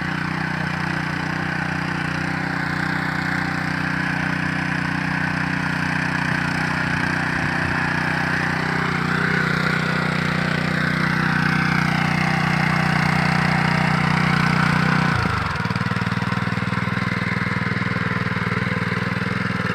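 Small walk-behind tiller engine running steadily under load while it churns soil. About 15 seconds in, its note changes abruptly and it runs a little quieter.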